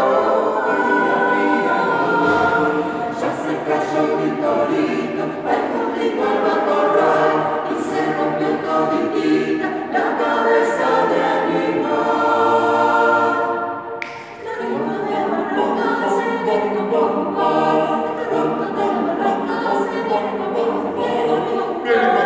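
Mixed choir of men's and women's voices singing an arrangement of a children's round in several parts, with a brief break about two-thirds of the way through.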